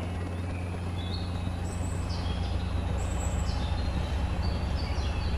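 Cartoon quadcopter drone's steady low propeller hum, growing louder about two seconds in, with birds chirping over it.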